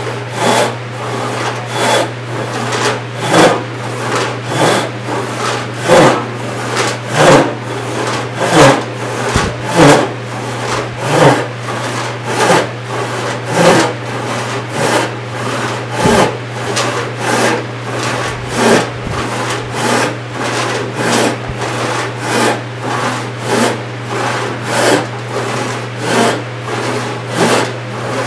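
Disston No. 7 hand rip saw (28-inch, 6 points per inch) ripping along the grain of 4/4 white oak: a steady, rhythmic rasp of saw strokes, about three strokes every two seconds.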